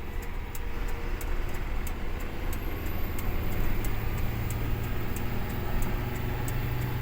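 Steady low engine rumble, heavier from about three seconds in, with a faint regular high ticking about four times a second.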